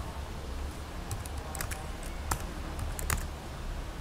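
Computer keyboard keystrokes: a few irregular clicks as code is typed, over a low steady hum.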